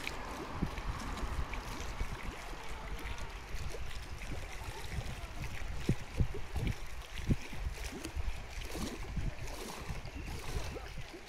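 Wind buffeting the microphone in uneven low gusts, over small waves lapping against the dam's concrete embankment.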